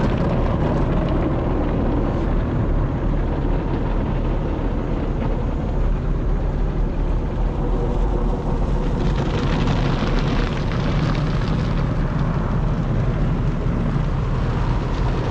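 Automatic car wash tunnel heard from inside the car: water and foam spraying against the body over a steady rumble of machinery. A brighter spray hiss swells about nine seconds in and eases off a few seconds later.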